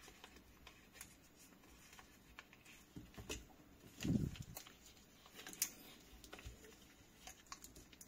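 Faint crinkling and rustling of a clear plastic wrapper being peeled off a small box by hand, with scattered small clicks and a soft thump about four seconds in.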